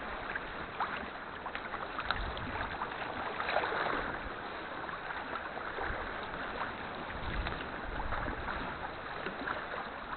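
A sea kayak being paddled: water splashing and dripping from the paddle blades and lapping at the hull, with many small splashes over a steady wash of water.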